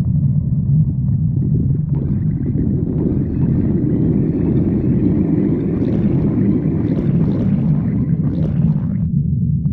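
A person's stomach growling over a steady low rumble. About two seconds in, a long gurgling growl sets in with crackly bubbling, and it cuts off sharply about a second before the end.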